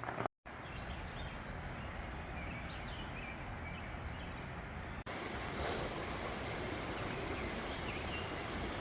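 Steady outdoor background noise with a few faint, short bird chirps, briefly cut twice by edits.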